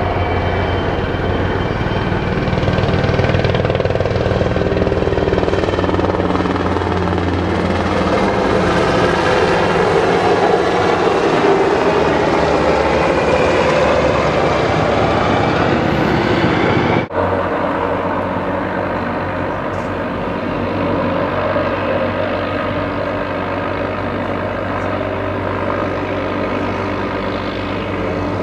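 Low-flying military helicopters passing overhead: a loud, steady rotor and engine sound that swells toward the middle, with a brief cut about seventeen seconds in.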